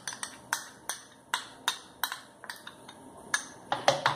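Metal spoon clinking and scraping against a glass bowl while condensed milk is scraped out of it: a series of sharp clinks, two or three a second, with a louder cluster near the end.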